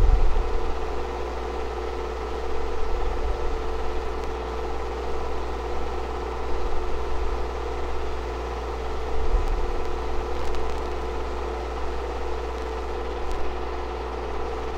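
A steady mechanical hum with several constant tones under a faint hiss.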